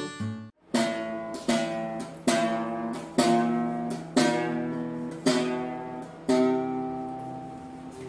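Acoustic guitar playing slow single strummed chords, seven of them about a second apart, each left to ring and fade away.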